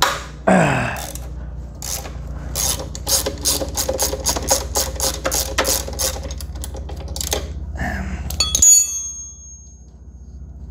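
Ratchet wrench clicking in a quick, even run as a suspension bolt is turned loose, then a sharp metallic clank with a short ring near the end.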